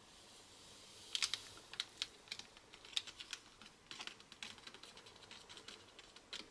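Foil sachet crinkling in the hand as powder is shaken out of it into a plastic bottle: a run of irregular sharp crackles and clicks, starting about a second in.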